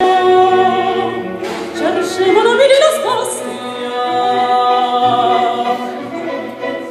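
Operatic music with singing voices holding long notes, and one voice sliding steeply upward in pitch about two to three seconds in, the loudest part.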